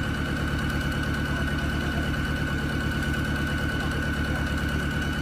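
Off-road 4x4's engine running steadily: a rapid, even low chugging with a steady high-pitched whine over it.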